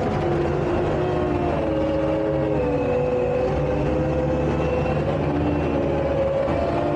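Takeuchi tracked skid steer's diesel engine running under working load, its note drifting up and down steadily.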